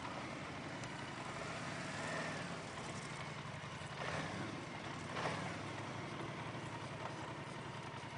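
ATV (quad bike) engines idling and running at low speed, a steady low engine note, with two brief louder sounds about four and five seconds in.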